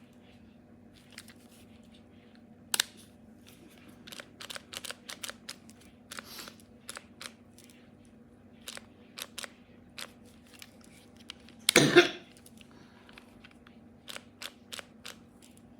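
Scattered light clicks and taps, like small objects being handled, with a single cough about twelve seconds in over a faint steady hum.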